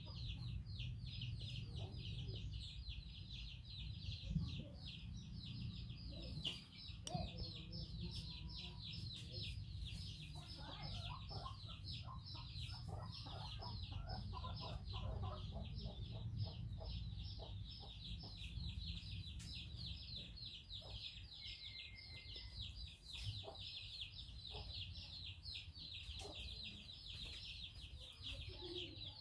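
Constant rapid, high-pitched chirping, many calls a second, over a low steady rumble. A run of lower, repeated calls comes in about ten seconds in and lasts several seconds.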